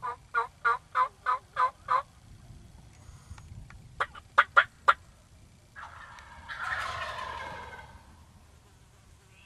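Wild turkey calls: a run of seven evenly spaced yelps in about two seconds, then four sharp, loud clucks, then a single gobble lasting about two seconds.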